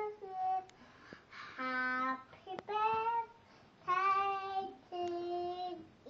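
A young girl singing a song unaccompanied, in a string of long held notes of about a second each.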